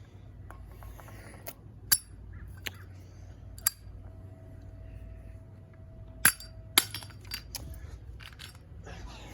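Zippo lighter's metal lid clinking open and snapping shut, several sharp clicks spread out, the loudest two close together about six seconds in.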